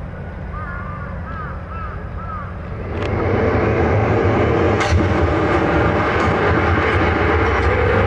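A few short chirps over a quiet background. About three seconds in, a loud, deep, rumbling sound comes in and holds steady.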